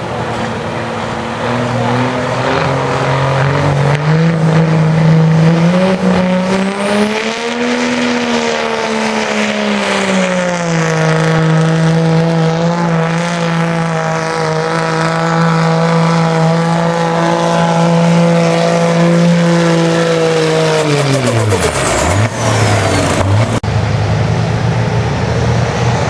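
Diesel pickup truck's engine at full throttle pulling a weight-transfer sled. Its pitch climbs over the first several seconds, then holds steady under heavy load. About 21 seconds in the revs fall sharply and settle low.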